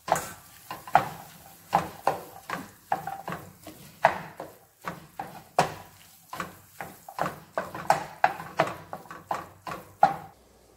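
Spatula scraping and knocking against a stainless steel pan while ground beef and diced onion are stirred, in repeated strokes roughly two a second, each with a short metallic ring.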